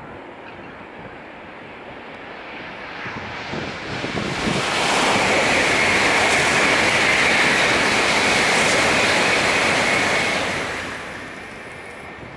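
A loud rushing noise with a high ringing tone in it swells up over about two seconds, holds steady for about five seconds, then fades away.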